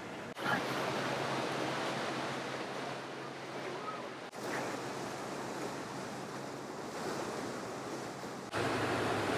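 Churning wake water and wind on the microphone aboard a trolling sportfishing boat, over a steady low drone from its diesel engines. The sound jumps abruptly in level three times.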